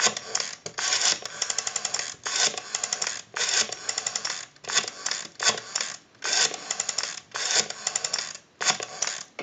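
Rotary dial of a Western Electric 202 telephone being turned and let go, digit after digit. Each return of the dial gives a rapid run of evenly spaced clicks, and short pauses fall between the digits.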